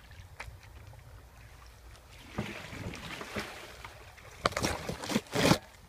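Leafy branches rustling and brushing against a canoe as it pushes through overhanging brush. The rustling builds from about halfway through, with several loud, close brushes near the end.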